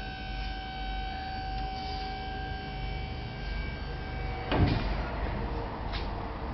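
A steady high whine over a low rumble, cut off about four and a half seconds in by a loud clunk, then a lighter knock about a second later.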